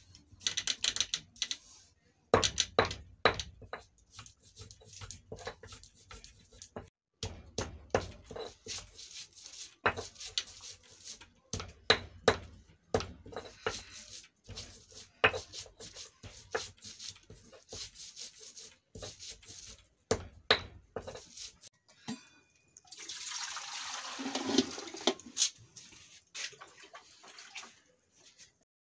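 Irregular knocks and clatters of kitchen work, some of them sharp, then about three seconds of water splashing or pouring near the end.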